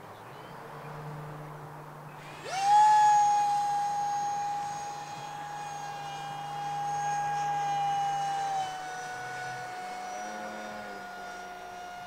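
Electric ducted fan of a 3D-printed Planeprint Seagull RC model spooling up sharply about two and a half seconds in to a steady high whine. It eases down slightly in pitch and loudness near nine seconds as the throttle is backed off.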